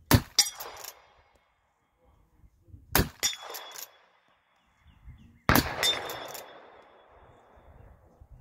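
Three shots from a Taylor's & Company copy of an 1860 Henry lever-action rifle in .45 Colt, about three seconds and then two and a half seconds apart. Each shot is followed by a few quick metallic clacks and clangs as the lever is worked and steel target plates are hit. The last shot trails off longer.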